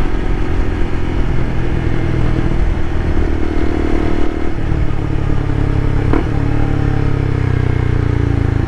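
Sport motorcycle's engine running steadily at highway cruising speed under the rider, with road and wind rush; the engine's low note gets stronger about halfway through, and there is a short sharp click about six seconds in.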